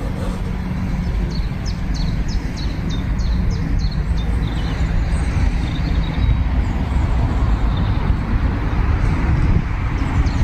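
A steady low outdoor rumble, with a bird giving a quick run of short, high chirps, about three a second, from about a second in to about four and a half seconds.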